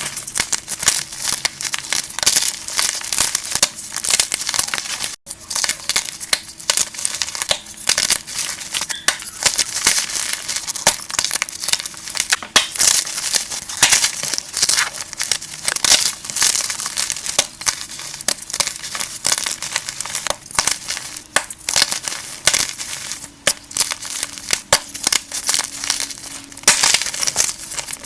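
Gym chalk being crushed and crumbled in a dense, continuous run of crisp crunches and crackles, broken only by a short gap about five seconds in.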